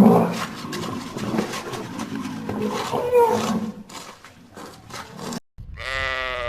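A big cat growling and roaring in rough, rumbling bursts, cut off suddenly near the end by a single pitched bleat of a sheep.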